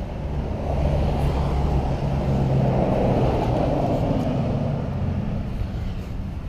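A pickup truck driving past on a road, its engine and tyre noise swelling to a peak a few seconds in, then fading away.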